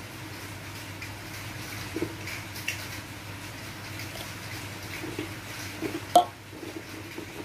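Spatula working rice flour and tapioca into hot coconut milk in a metal pan: soft, wet scrapes and dabs, with one sharp knock of the spatula against the pan a little after six seconds in.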